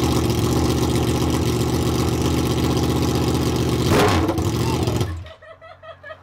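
Yamaha R1 inline-four engine running loud through bare headers, with the mufflers and mid pipe removed. It gives a brief rev about four seconds in and is then shut off abruptly about a second later.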